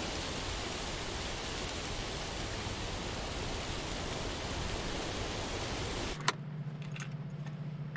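A steady, even hiss of noise from the playing music video's soundtrack, cutting off suddenly about six seconds in. A low steady hum with a few light clicks is left after it.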